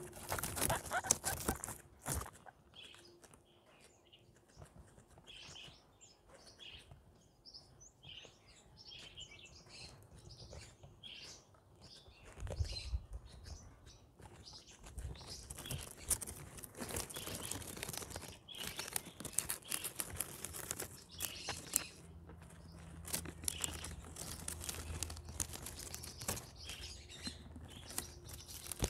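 Guinea pigs chewing and nibbling flowers and greens: many quick crunches and tearing nibbles, with short high chirps in the first half.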